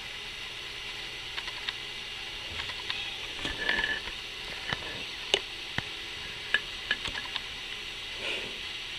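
A baby tortoise eating soft, mushed-up food: small scattered clicks and ticks of its beak in the food over a steady low hiss.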